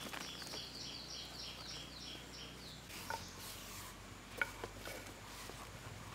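A bird gives a rapid series of high, falling chirps, about four a second, for the first three seconds or so. After that come a few sharp clicks and snaps from vines being handled, the loudest a little over four seconds in.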